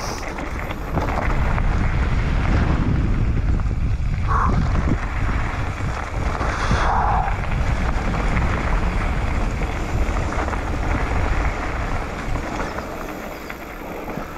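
Mountain bike descending a dirt and stone singletrack: wind buffeting the microphone over the rumble of knobby tyres on the ground and the bike rattling. There is a short squeak about four seconds in and a brief falling squeal about seven seconds in.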